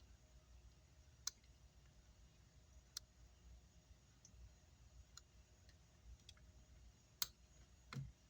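Near silence broken by about five faint, sharp clicks spaced a second or more apart, from hand tools touching the circuit board during soldering work.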